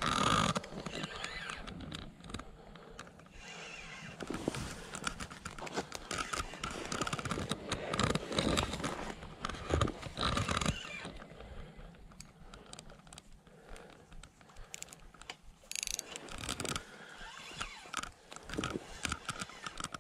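Spinning reel being cranked while a hooked fish is played, with clicking from the reel and rustling and handling noise close to the body-worn camera, busiest about seven to eleven seconds in.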